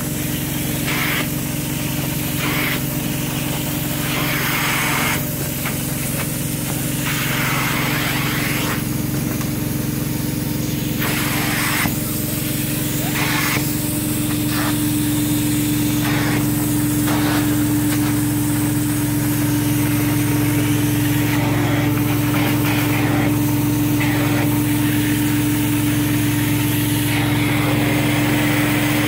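Truck-mounted carpet cleaning unit running with a steady drone, while an upholstery wand is worked over microfiber fabric, its spray and vacuum suction hissing in repeated strokes of a second or two.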